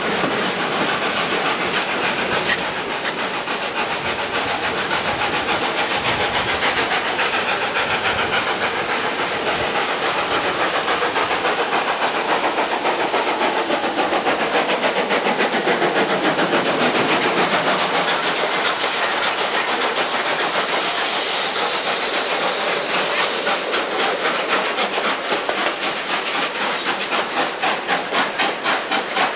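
Steam locomotive 520, a South Australian Railways 4-8-4, working hard alongside at close range: a rapid, steady beat of exhaust chuffs over loud hissing steam and the clatter of carriage wheels on the rails, with the beat plainest near the end.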